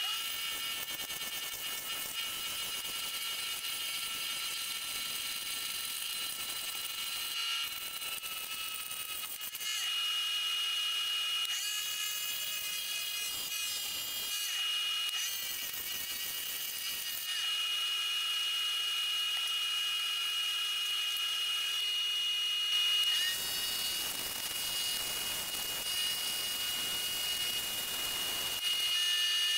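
Wood lathe running with a steady high whine while a hand-held chisel cuts the spinning wood, the cutting hiss coming and going as the tool is pressed in and lifted. Near the end, abrasive paper held against the spinning piece adds a rougher sanding hiss.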